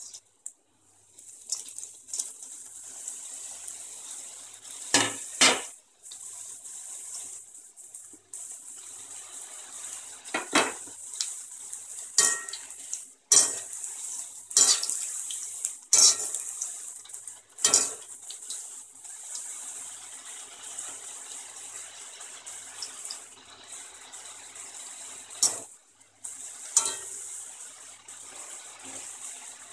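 Potato sticks deep-frying in hot oil in a metal kadai: a steady hissing sizzle that starts about a second in, for the high-flame second fry that crisps the fries. A metal wire skimmer clinks and scrapes against the pan about ten times as the fries are stirred.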